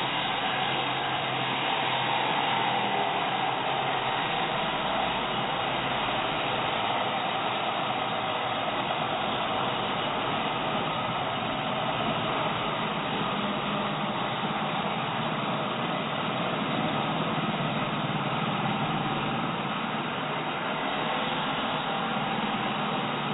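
Angle grinder cutting through steel all-thread (threaded rod), a steady grinding noise that holds without a break.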